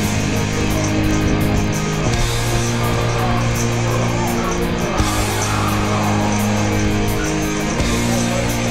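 Rock music with guitar: held chords that change every two to three seconds over a steady drum beat.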